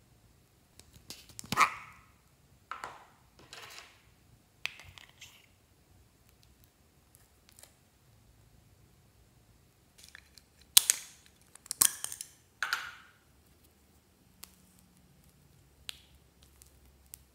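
Small plastic cosmetic containers and lipstick tubes being handled and opened: sharp plastic clicks and snaps with short scraping rustles. They come in two clusters with a lull of several seconds between, then a few faint ticks near the end.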